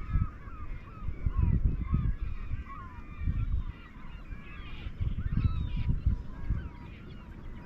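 A large flock of birds calling constantly, many short overlapping calls, over a low, fluctuating rumble.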